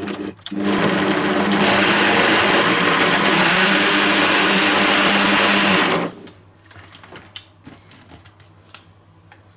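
Bosch MUM5 kitchen machine's blender attachment running steadily, blending milk, frozen strawberries and vanilla ice cream into a thick shake. It dips briefly about half a second in and stops suddenly about six seconds in, followed by light clicks and clatter from the jug being handled.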